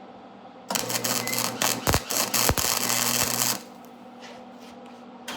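Wire-feed welder striking an arc and running a short weld: about three seconds of loud crackling, sputtering arc noise starting just under a second in, over a steady electrical hum, then the arc stops and only the hum remains.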